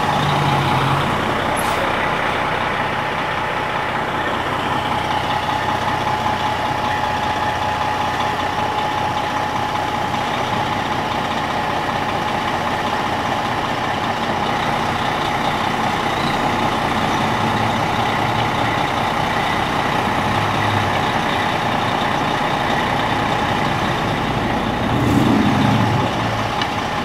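Heavy fire truck engine idling steadily, with a steady whining tone over it. Near the end there is a short, louder low swell.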